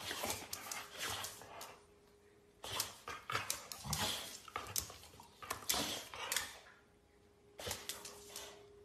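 Dog growling and snapping in play at a toothbrush held out to it, in four short bouts with brief pauses between.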